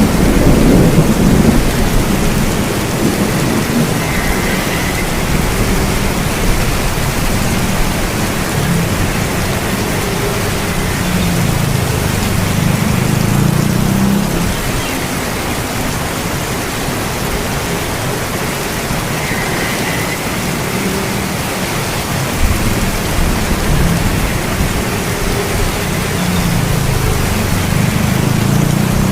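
Steady heavy rain with low thunder rumbling underneath, the rumble strongest in the first couple of seconds and swelling and fading after that.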